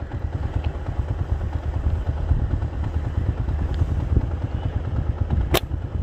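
A slingshot shot at a dove: one sharp snap of the rubber bands and pouch being released, near the end, over a steady low rumble.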